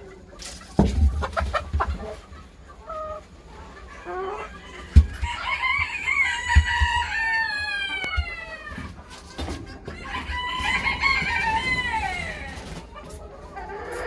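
All-black rooster crowing twice, each crow a long call of about three seconds, the first starting about five seconds in and the second about ten seconds in. Before the first crow there are short clucks from the hens and a few dull thumps.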